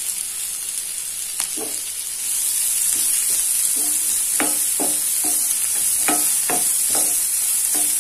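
Chopped onions sizzling steadily in melted butter in a nonstick frying pan while a wooden spatula stirs them, with a series of short knocks and scrapes against the pan that come more often in the second half.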